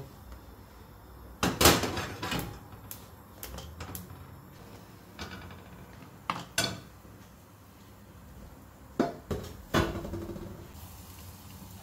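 Kitchen clatter of cookware: a string of sharp knocks as a frying pan and utensils are handled and set down on a gas hob, the loudest about a second and a half in and a few more near the end.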